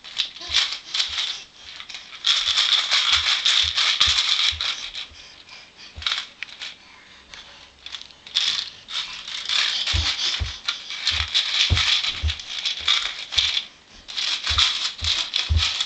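A baby shaking a toy rattle in long bursts of shaking, with a few dull knocks in between.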